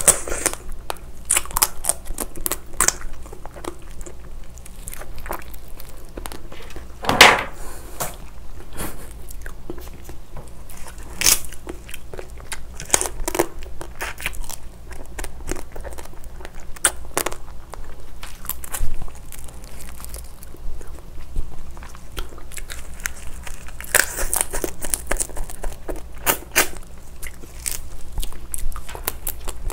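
Soy-marinated raw crab (ganjang-gejang) being eaten close to the microphone: its shell cracking and crunching under teeth and fingers, with chewing, in irregular sharp snaps, the loudest about 7 and 19 seconds in.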